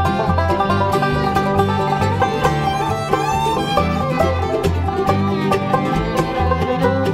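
Bluegrass band playing an instrumental passage on banjo, fiddle, mandolin, acoustic guitar and upright bass. The bass notes fall about twice a second under the picked strings.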